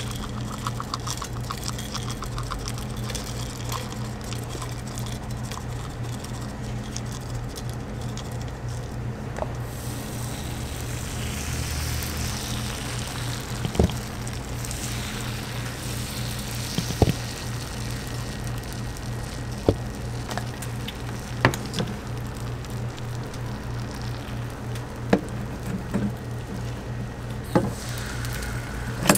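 Seeds pattering into a hot cast-iron bubble waffle mold, then batter poured over them and sizzling on the iron from about a third of the way in, over a steady low machine hum. A few sharp metal clicks punctuate it.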